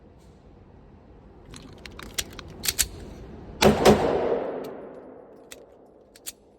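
Airsoft pistol: a few metallic handling clicks, then two shots in quick succession about a quarter second apart, each leaving a long fading rush, followed by a few faint ticks.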